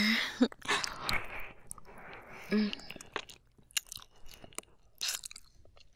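Close-miked ASMR mouth sounds of a woman licking: wet smacking and tongue noises with scattered sharp wet clicks, and a short hum about two and a half seconds in.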